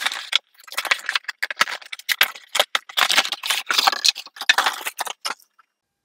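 A cardboard box being opened and unpacked by hand: irregular scraping, rustling and crinkling of the packaging, which stops about five seconds in.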